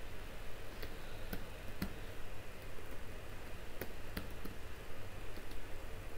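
Typing on a Lenovo Y50-70 laptop keyboard: separate keystroke clicks, irregular and a few tenths of a second to about a second apart, over a steady low hum.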